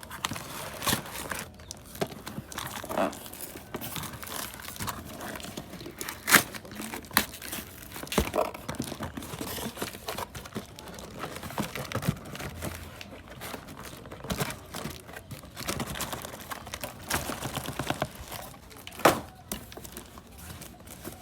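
Packaging being handled and torn open: irregular crinkling, rustling and tearing, with sharp knocks, the loudest about six, eight and nineteen seconds in.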